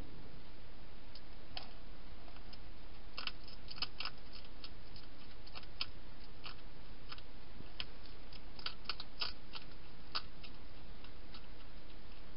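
Wild hedgehog chewing dry food: irregular crisp clicks and crunches, coming in clusters, over a steady hiss.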